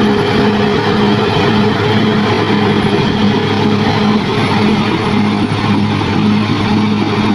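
Bulldozer running, a loud steady mechanical drone with a low tone that pulses about twice a second.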